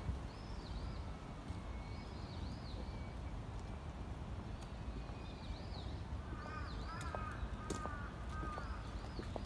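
Birds calling in a park: repeated short, high chirping calls, then a run of four or five lower calls about two-thirds of the way through. A steady low rumble of background noise lies underneath, with a few light clicks.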